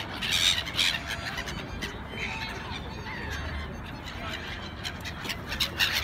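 A flock of black-headed gulls calling in flight. There is a burst of calls about half a second in, scattered calls through the middle, and another burst near the end.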